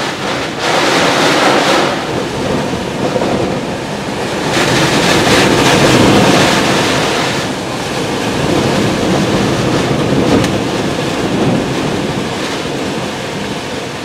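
Tropical-storm wind gusting with driving rain: a loud, continuous roar that surges and eases, swelling about a second in and again from about four to seven seconds in, with the wind buffeting the microphone.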